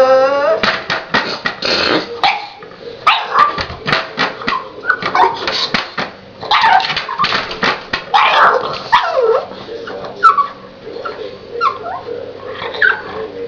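A dog whining and yipping over and over, short sharp barks mixed with whines that slide up and down in pitch, as it asks to be let in.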